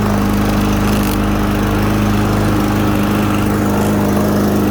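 Troy-Bilt TB110 push mower's 140cc engine running steadily at a constant speed, just after restarting on its own fuel. The restart shows that the cleaned carburetor, whose clogged stem had left the engine needing starting fluid, is feeding gas again.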